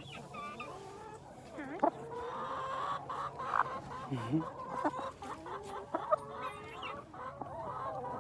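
Chickens clucking, several birds calling in short, scattered clucks.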